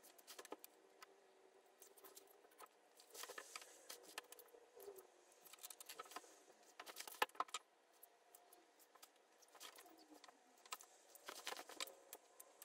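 Faint rustling of a herringbone skirt and its lining being handled, with scattered light clicks and ticks. The sounds come in small clusters a few seconds apart.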